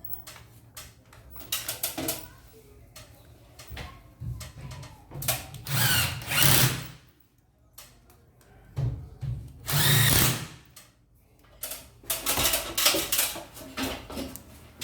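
Power drill running in several short bursts, the longest two in the middle, with knocks and handling clatter between them.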